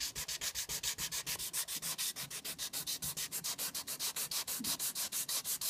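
Wet sanding by hand with 800-grit wet/dry sandpaper on an aluminum passenger-car body, in rapid, even back-and-forth strokes, working out a deep scratch.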